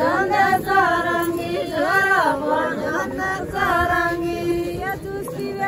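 Women singing a traditional wedding folk song together, a melody of long held notes bending up and down.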